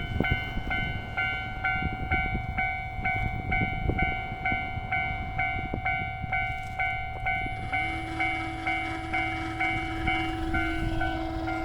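Japanese level-crossing alarm bell ringing steadily, about two strokes a second. About two-thirds in, a long steady low tone from the approaching train joins it and is still held at the end.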